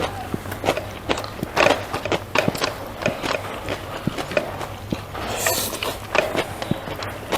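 A person chewing food close to the microphone, with irregular crunches and clicks of the mouth.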